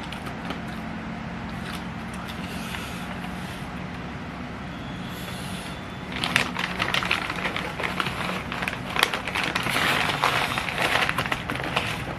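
Close-miked eating sounds: a steady low hum, then from about halfway a dense run of crackling, crunching clicks from food being eaten.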